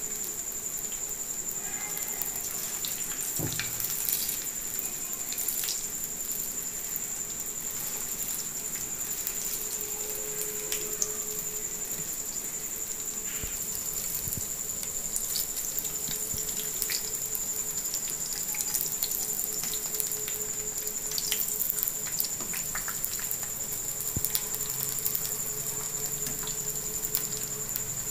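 Urad dal bondas deep-frying in a pan of hot oil: a steady sizzle with many small crackles.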